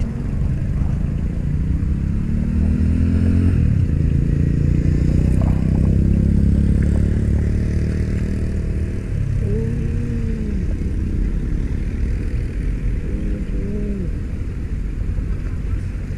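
Motor traffic passing close by: a steady engine rumble, with one engine accelerating about three seconds in and two short revs that rise and fall in the second half.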